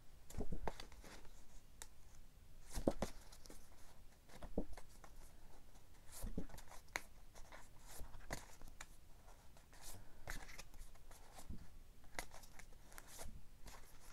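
A stack of glossy photo art cards being handled and shuffled: faint, scattered paper rustles and light taps as the cards slide over one another.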